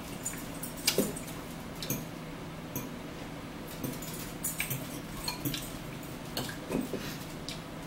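Mukbang eating sounds: forks clicking and scraping against plates and bowls of egg and spinach salad, with chewing and mouth sounds. A faint steady hum runs underneath.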